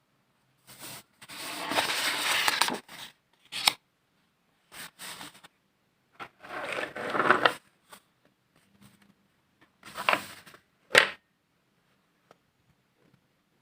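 Close handling noise: three rustling, scraping bursts, the first two lasting a second or more, with a few sharp clicks between them.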